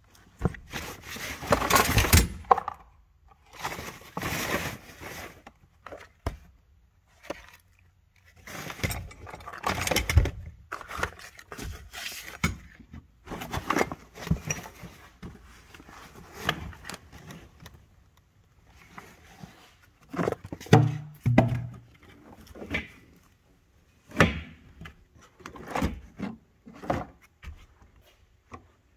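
Irregular clatter of metal parts and tools being handled and worked loose from a car's floor and footwell, with knocks, rattles and scrapes. The loudest knocks come about two seconds in, around ten seconds and around twenty-one seconds.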